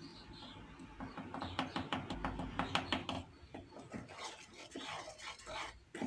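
Spoon stirring thin cake batter in a plastic bowl: a quick run of clicks and scrapes against the bowl, thickest in the first half and sparser after. The baking powder is being mixed in gently by hand, not beaten.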